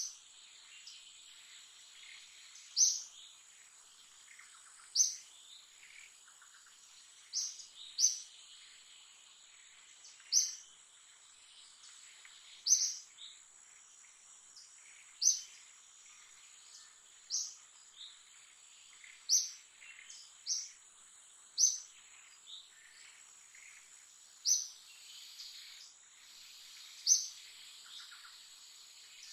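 A bird repeating one short, high call every two seconds or so, sometimes two in quick succession, over a steady high-pitched insect drone and fainter background calls.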